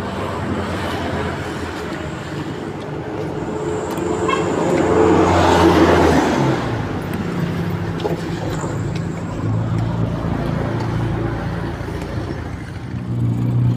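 Road traffic: a steady low engine hum, with one vehicle passing close by, loudest about six seconds in.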